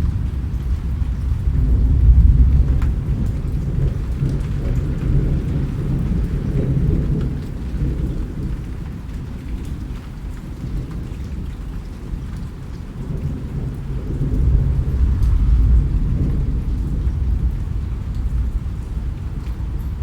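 Steady rain with a deep rumble of thunder rolling underneath it, swelling about two seconds in and again near fifteen seconds. Faint raindrop ticks sound above the rumble.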